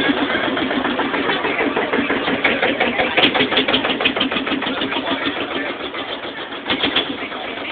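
A vehicle engine running close by with a rapid, even chugging beat, slowly getting quieter toward the end. There is a single sharp click about three seconds in.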